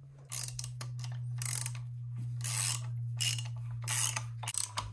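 Hand ratchet clicking in a run of back-and-forth strokes as it works a small nut on the engine's timing belt cover, over a steady low hum.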